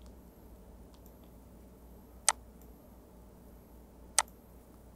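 Two sharp computer mouse clicks about two seconds apart, with faint room noise between them.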